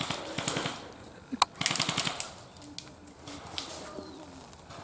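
Airsoft guns firing in rapid bursts: a quick burst at the start and another about a second and a half in, with a single sharp shot between them.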